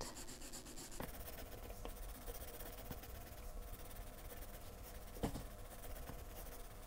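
Faint scratching of a coloured pencil shading back and forth on paper, with a couple of light taps about a second in and again near the end.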